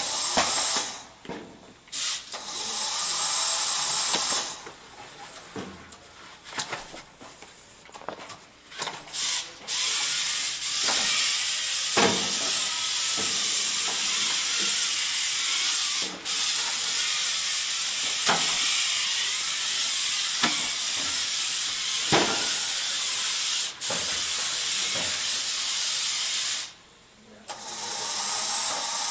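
Competition robot's electric drive motors and gearing whirring as it drives and runs its mechanisms. The sound comes in short start-stop bursts for the first ten seconds or so, then runs steadily for about sixteen seconds, cuts out briefly and starts again near the end.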